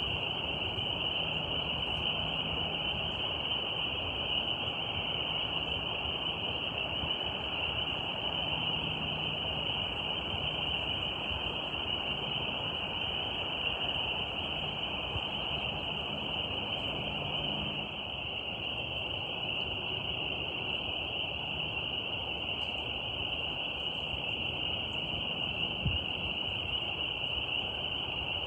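Steady nature ambience: a continuous high-pitched drone over a soft, even hiss, unchanging throughout.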